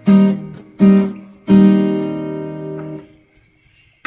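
Background music of a strummed acoustic guitar: three chords struck in the first second and a half, the last ringing out until about three seconds in, then a pause.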